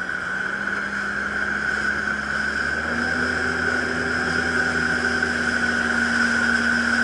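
Jet ski engine running under way, with a steady high whine above the engine note. The engine note steps up in pitch about three seconds in, and the sound grows slightly louder as the craft speeds up.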